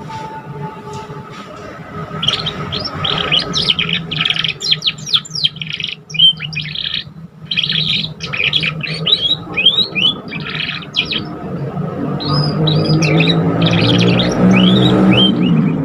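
Young canary singing its learning song: fast runs of high chirps and short sweeping notes, beginning about two seconds in. From about twelve seconds a lower layered humming tone rises underneath.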